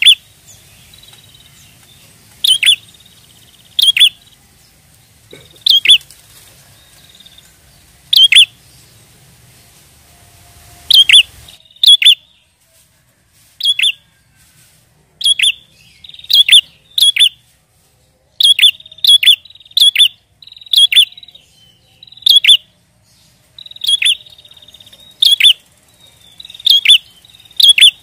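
Prinia (prenjak) calling: loud, short, sharp notes repeated every second or two, some in quick pairs.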